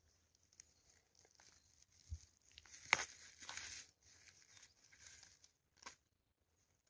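Faint rustling and crackling of dry grass, pine needles and soil as a March mushroom (Hygrophorus marzuolus) is worked loose and pulled out of the ground by hand. There is a dull thump about two seconds in, a sharper snap about three seconds in and another near six seconds.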